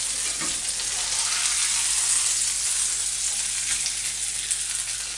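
Sole fillets sizzling steadily in butter in a frying pan, just turned onto their second side. A few faint clicks come from a spatula against the pan.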